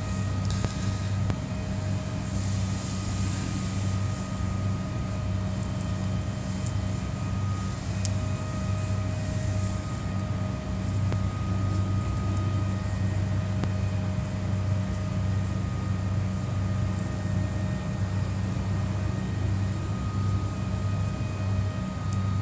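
Steady low machine hum, with faint higher whining tones that fade in and out over it.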